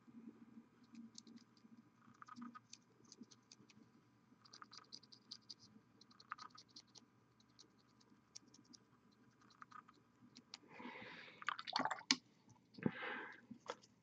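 Faint scattered little clicks and scratches of a fine paintbrush and fingers working on a small plastic miniature. Near the end come a few louder rustling handling noises and one sharp click.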